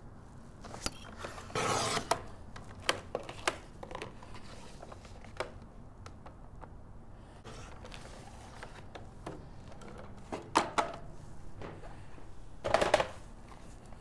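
Layered cardstock being trimmed: three short cutting strokes with sharp clicks and taps of paper and tools in between.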